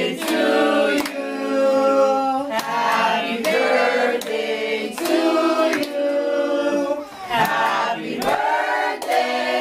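Several voices singing together in long held notes, phrase after phrase, over a steady low tone.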